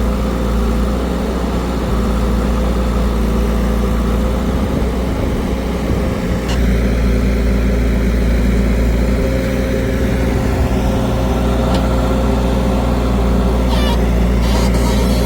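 Diesel engine running steadily at low revs, with a sharp click and a change in its note about six and a half seconds in, and a few short rattling ticks near the end.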